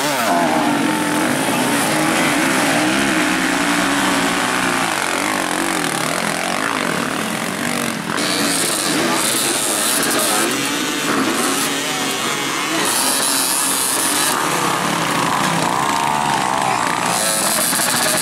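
Several enduro dirt bike engines revving hard, their pitch rising and falling as they fight for grip in deep mud. About eight seconds in the sound cuts to bikes close by revving hard with their rear wheels spinning in the mud.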